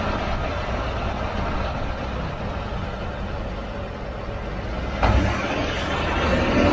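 A 2016 Ford F-150 driving, with a steady low rumble of road and drivetrain noise. The loudness jumps suddenly about five seconds in. This is the noise that the owner takes for a dry bearing.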